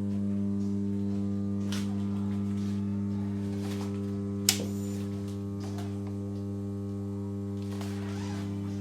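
Steady electrical hum with several even overtones, unchanging throughout, and one sharp click about halfway through.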